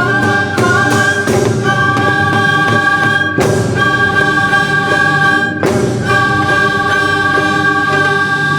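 Korean traditional orchestra (gukak gwanhyeonak) playing loud, sustained held notes on several pitches at once, with two percussion strokes a couple of seconds apart.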